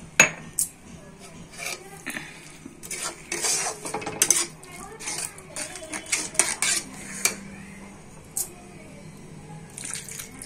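Metal spatula scraping and knocking against a metal kadai while stirring thick masala paste, in irregular clinks and scrapes that are busiest in the middle, with two sharp knocks at the start.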